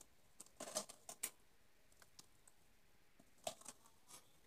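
Faint handling sounds: a few soft clicks and taps of potato and carrot slices being arranged by hand in an earthenware tagine, in two short clusters about a second in and again near the end.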